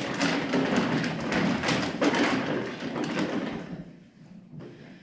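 Hand-cranked raffle ticket drum turning, the paper tickets tumbling inside with a rolling, rustling clatter; it fades out and stops a little under four seconds in.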